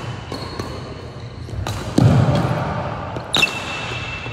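Badminton rally: sharp racket strikes on a shuttlecock and players' footwork on a wooden gym court, with a heavy thud about two seconds in. A sneaker squeaks briefly on the floor a little after three seconds in.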